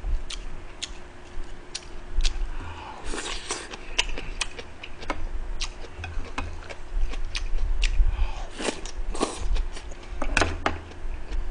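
Close-miked eating: wet chewing and mouth clicks with the occasional tap of chopsticks on dishes, and a few louder, longer chewing noises about three, eight and ten seconds in. A faint steady hum runs underneath.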